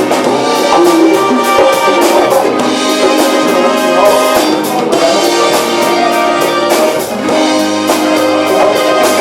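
Funk band playing live: a horn section holding and shifting notes over a steady drum-kit beat.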